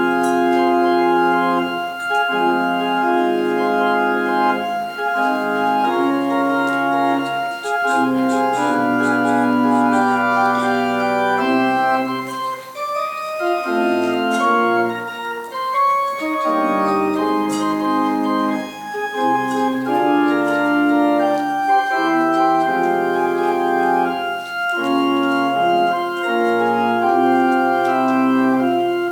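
Organ playing held chords that change every second or two.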